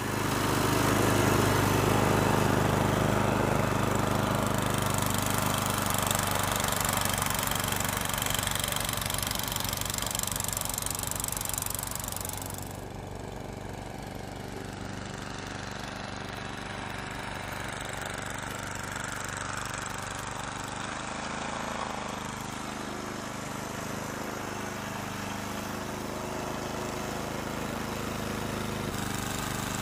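Small petrol engine of a snowblower running steadily. About 13 seconds in it becomes somewhat quieter and duller.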